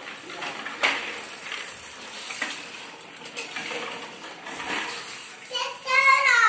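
Light clattering and knocking of a child's bicycle with training wheels rolling over a tiled floor. Near the end comes a loud, high-pitched cry whose pitch falls at its close.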